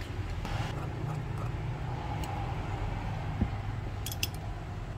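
Steady low rumble with a few light clicks, a pair of them about four seconds in, and one soft knock about three and a half seconds in.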